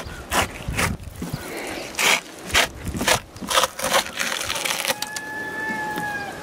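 Fillet knife cutting a cod fillet away from the frame on a wooden table: a series of short crunching, scraping strokes as the blade works along the rib bones. A steady whistle-like tone, falling slightly in pitch, joins about five seconds in.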